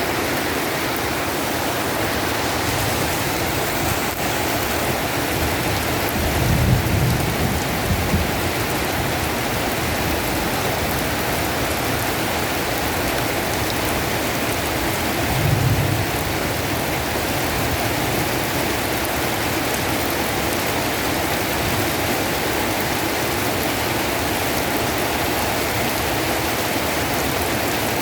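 Heavy rain falling steadily, a dense even hiss, with two short low rumbles about six and fifteen seconds in.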